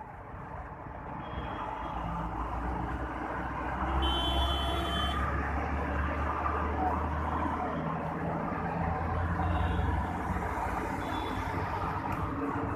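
A bus engine running as it drives through floodwater, over the steady rush of flowing water; the engine grows louder over the first few seconds and eases off near the end. A brief high-pitched tone sounds about four seconds in.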